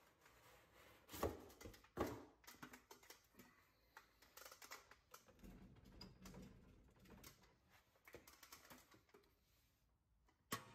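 Faint handling noises as a new brake rotor is lifted out of its cardboard box and set onto the wheel hub: a scatter of light clicks and rustles, with two sharper knocks about one and two seconds in.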